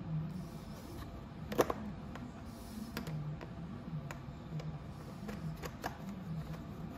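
Scattered clicks and taps of a bolt being fitted through the ATV's plastic footwell into the body. The sharpest is a quick double click about a second and a half in, with smaller ones spread through the rest.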